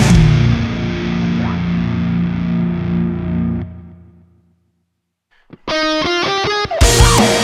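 Heavy metal band music: the drums stop and a distorted electric guitar chord is left ringing, fading out into about a second of silence. Then comes a quick run of bright, clean notes, and the full band with drums crashes back in near the end.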